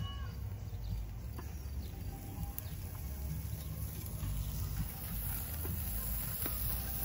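Outdoor background ambience: a low steady rumble with a faint, even high hiss like insects chirring, and a few faint clicks.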